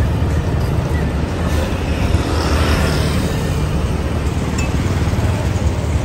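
Diesel bus engines idling with a steady low rumble. A brief hiss rises and fades about two and a half seconds in.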